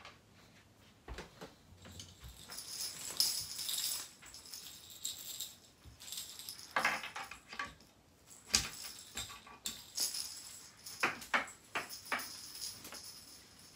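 Baby rattle toys jingling and rattling as they are handled and hung on a crib's rails, in several short bursts with a few light knocks.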